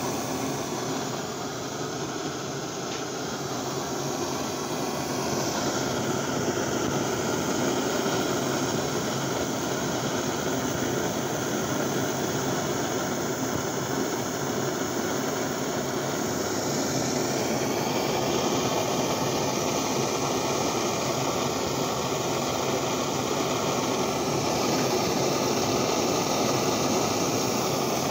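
Homemade white-gas pressure stove of the Stesco/Handy Campers type, its burner running at full flame from a 0.60 mm jet with a steady rushing noise, slightly louder from about five seconds in.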